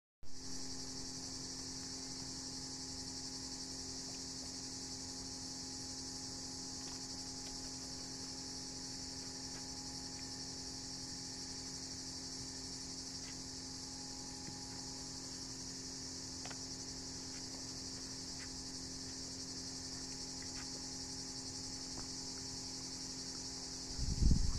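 Steady, high-pitched chorus of insects, an unbroken buzzing, with a low steady hum beneath it.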